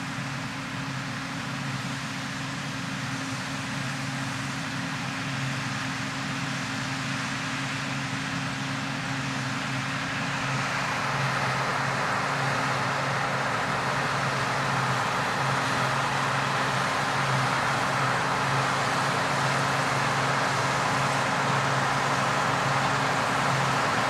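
John Deere 9780i CTS combine harvester running steadily while threshing wheat: a low engine hum under a broad hiss, growing a little louder about ten seconds in.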